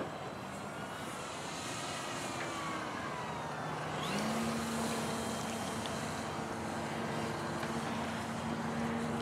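Electric motor and propeller of a Dynam RC model airplane whining in flight, its pitch rising and falling as it passes. About four seconds in, a steady low hum joins it.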